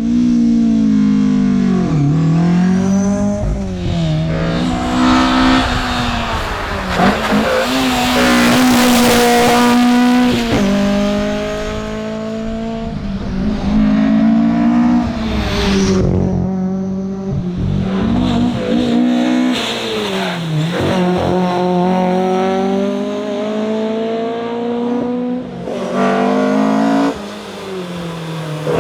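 Fiat Abarth 131 Rallye's four-cylinder engine under hard acceleration from inside the car. The pitch climbs and then drops sharply at each shift, several times over, and falls back between bursts, with road and tyre noise underneath.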